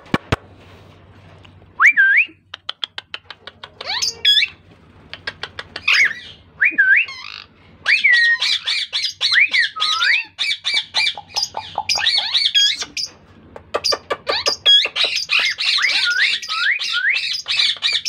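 Plum-headed parakeet calling close by: short rising squeaky calls mixed with rapid clicking, building about eight seconds in into near-continuous chatter.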